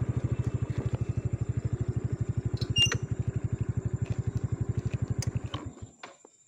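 Motorcycle engine idling with an even, rapid low pulse, then switched off about two-thirds of the way through, cutting out abruptly. A brief sharp click sounds about three seconds in.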